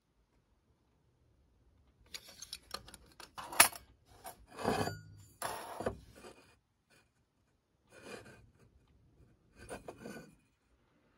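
Brass parts of a Svea No. 100 stove being handled, metal rubbing and scraping against metal. There is a sharp clink about three and a half seconds in, and two shorter scrapes near the end.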